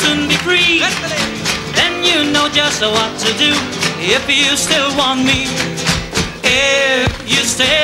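Live flamenco-style music: rapid strumming on a nylon-string acoustic guitar, with a man singing.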